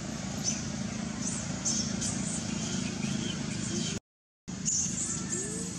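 Outdoor background ambience: a steady hum of distant traffic and voices, with scattered short high chirps. The sound drops out completely for about half a second, about four seconds in.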